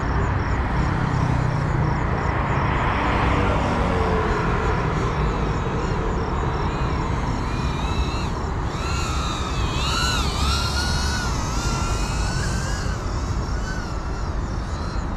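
GEPRC Cinelog 35 ducted cinewhoop FPV drone's motors and propellers whining in flight. The pitch bends up and down with the throttle and is clearest in the second half.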